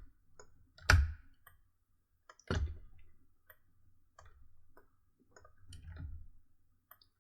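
Computer mouse and keyboard clicks at the desk: two sharp, louder clicks about one and two and a half seconds in, with scattered faint clicks and soft low thuds between them.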